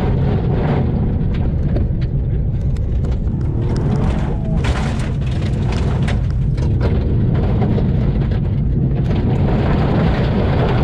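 Toyota GR Yaris's turbocharged three-cylinder engine and tyres, heard from inside the cabin while it is driven hard on wet gravel: a loud low rumble, with gravel rattling against the underbody in clusters, busiest about four to five seconds in.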